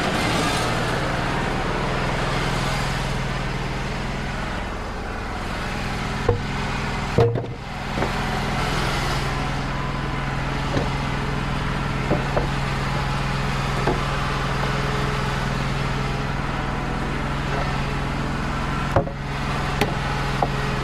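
Wood-Mizer LT35 hydraulic portable sawmill running steadily, its engine holding a constant note, with a broad hiss over the first few seconds that fades. A few sharp knocks come about six and seven seconds in and again near the end.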